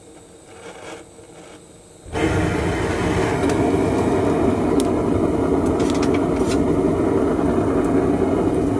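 Gas burner of a homemade heat-treating furnace lighting suddenly about two seconds in, then running steadily with a loud, even rushing sound as it fires into the furnace. A few sharp clicks sound over it.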